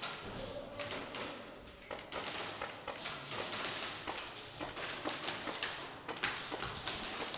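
Irregular sharp taps and clicks, several a second at times, from airsoft guns firing and BBs striking hard surfaces, over a steady background hiss.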